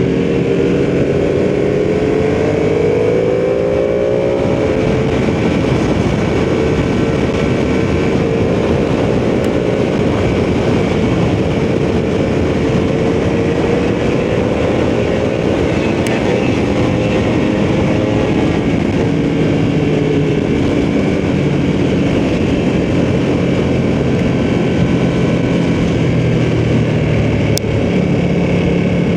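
Ducati sportbike engine under way at a steady pace. Its pitch rises over the first few seconds, then holds and drifts gently with small throttle changes, over a steady rush of wind noise.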